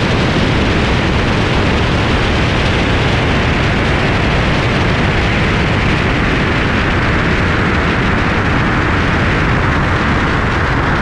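Steady wind rush over a camera mounted on the outside of a car at highway speed, with road and vehicle noise blended in underneath.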